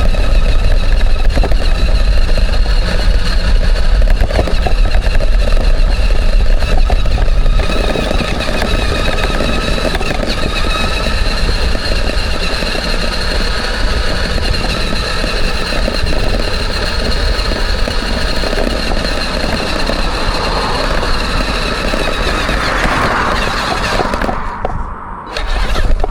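Homemade 4x4 RC truck's electric motor and gearbox whining steadily as it drives over rough ground, with a heavy low rumble. The whine swells a little about 21 to 23 seconds in, then drops out briefly near the end.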